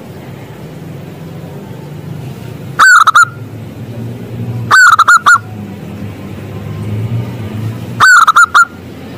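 Zebra dove (perkutut) cooing: three loud bursts of three or four quick notes each, about three, five and eight seconds in.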